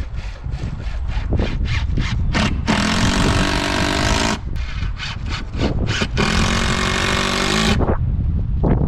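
A power tool's motor runs in two sharp-edged bursts of about a second and a half each. Each burst comes after a series of short, quick strokes.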